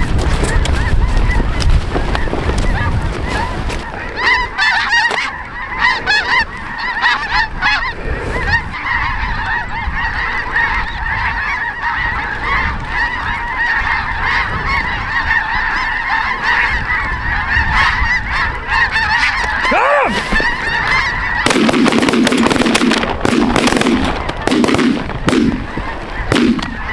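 A large flock of snow geese calling: a dense, unbroken din of high, yelping honks from many birds at once. In the last five seconds or so the calling gives way to louder, rough noise.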